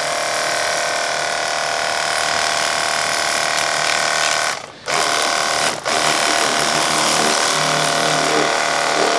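Cordless 21 V battery pressure washer running: a steady whine from its pump motor over the hiss of the water jet spraying a car tyre. It cuts out briefly twice about halfway through.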